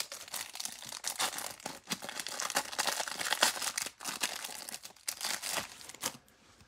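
Plastic wrapper of a pack of 2021 Mosaic football cards crinkling and tearing as it is ripped open and peeled off the cards, stopping about six seconds in.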